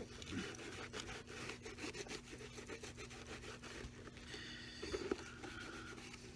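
Faint, irregular rubbing and scratching of a cloth worked over the leather upper of a shoe, pushing shoe cream into the leather.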